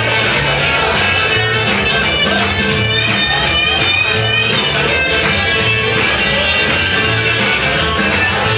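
Loud rockabilly music with guitar, over a bass line that steps from note to note with a steady beat.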